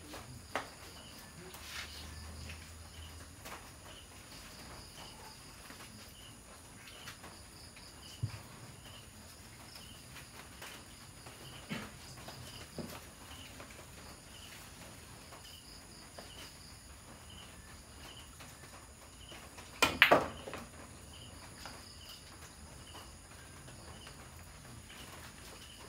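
Crickets or other night insects chirping in a steady, regular rhythm, with a constant high whine behind. About 20 s in, a pool cue strikes the cue ball, followed by quick clacks of balls colliding. A few faint knocks come earlier.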